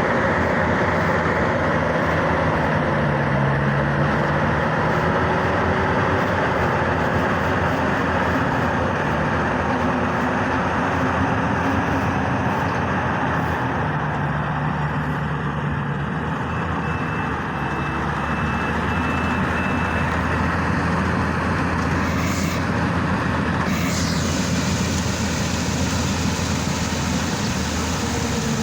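Yanmar YH700 full-feed combine harvester running steadily, a dense mechanical din with a low engine hum. Two brief sharp clicks sound about three-quarters of the way through.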